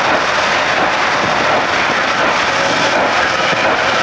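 C&O 614, a 4-8-4 steam locomotive, approaching at speed with its exhaust working hard: a steady, loud roar in which no separate chuffs stand out.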